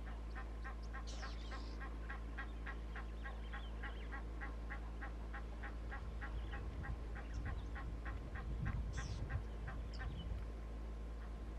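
A bird calling in a long, even series of short notes, about four a second, thinning out after about seven seconds, with a few brief higher chirps from other birds. In the second half there is low sloshing of water as an elephant wades and steps through the shallows.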